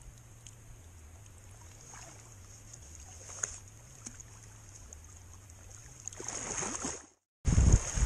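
Water dripping and lapping as a large trout is lowered back into the lake and released, building to splashing near the end. After a brief cutout, loud wind on the microphone with waves breaking on the shore.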